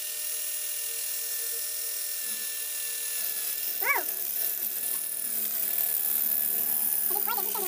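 IZOM 12-volt cordless drill running steadily with a high whine as its twist bit bores into a masonry wall. A brief rising-and-falling cry cuts in about four seconds in, and wavering, voice-like cries come in near the end.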